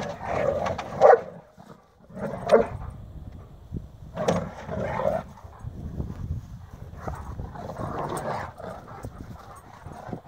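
Two Bernese Mountain Dogs barking and yipping in short, irregular bursts as they play-fight.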